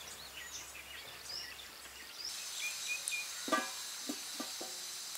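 Outdoor ambience with small birds chirping. About two seconds in, it changes to a steady high hiss with a few brief calls.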